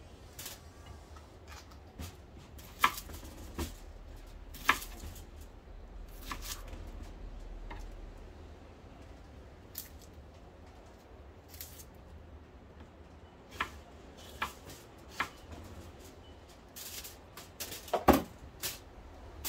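Knife cutting vegetables on a wooden chopping board: scattered sharp taps of the blade on the board, with a quick run of knocks near the end.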